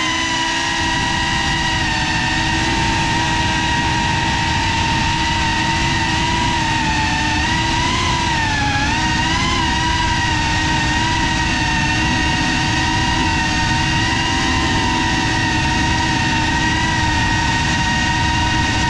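FPV quadcopter's brushless motors and propellers whining steadily in flight. The pitch dips briefly about eight seconds in and climbs back as the throttle changes.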